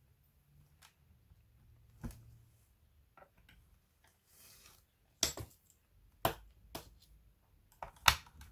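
Sharp clicks and taps of plastic parts and small tools being handled during laptop disassembly, with a brief soft rustle about halfway through; the strongest clicks come near the end.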